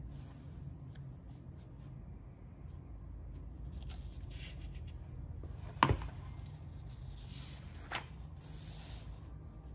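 Paper pages of a spiral-bound sketchbook being handled and turned, rustling softly, with a sharp tap about six seconds in and a lighter one about two seconds later, over a low steady hum.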